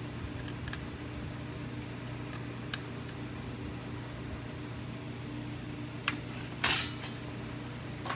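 Red-handled (left-cut) aviation snips cutting thin galvanized sheet steel: a few sparse, sharp snips, and a louder metallic rattle about two-thirds of the way through. A steady hum runs underneath.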